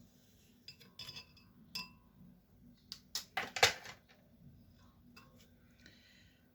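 Kitchenware being handled: light clinks of glass and metal utensils, then a louder clatter of knocks about three seconds in.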